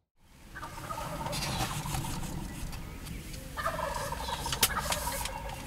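Wild turkeys gobbling in the woods at dawn, in two long stretches, the second starting about three and a half seconds in. One sharp click about four and a half seconds in.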